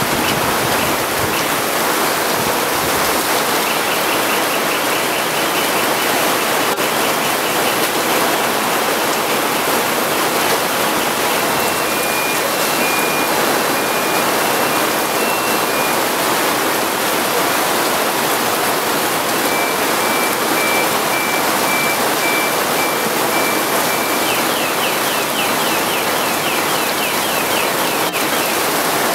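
Heavy rain pouring down, a loud, steady rush of water on pavement and parked cars. Faint high electronic beeping comes and goes in the background.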